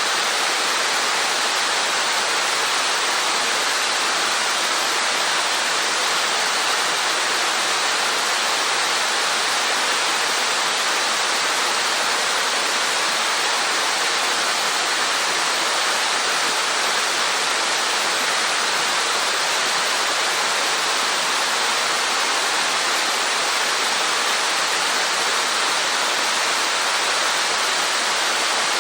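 Steady, unbroken rush of a waterfall with a 15 m drop, water falling and splashing.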